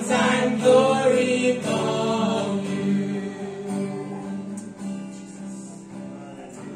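A small group of voices singing a Tok Pisin worship song in harmony with a guitar playing along; the voices are strongest for about the first three seconds, then the music fades away.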